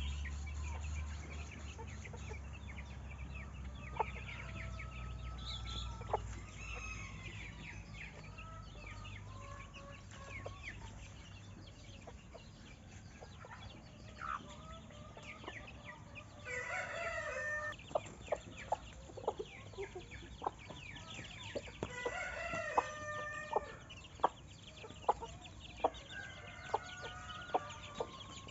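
Chickens clucking, with a rooster crowing twice in the second half. A low rumble fades away over the first few seconds, and sharp clicks come about once a second in the latter half.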